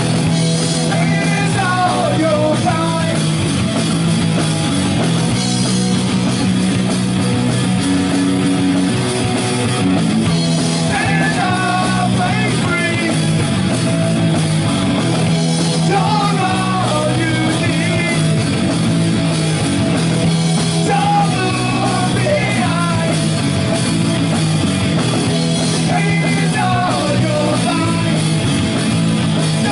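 Live punk rock band playing loudly: electric guitar, electric bass and drum kit, with sung vocal lines coming in every few seconds over the steady band.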